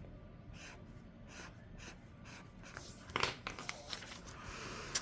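Faint handling of planner paper: soft repeated rustles, then a sharper crinkle about three seconds in followed by more rustling.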